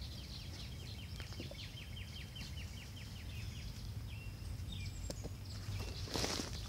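Rustling and scraping of loose potting soil as a gloved hand digs through it, with one louder scrape near the end. A songbird in the background gives a quick trill of short downward notes over the first few seconds, then a few more high calls.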